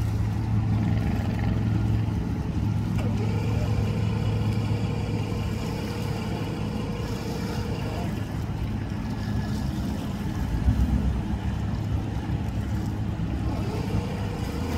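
Mercury outboard motor on a bass boat idling steadily, a low even hum. A brief low thump about two-thirds of the way through.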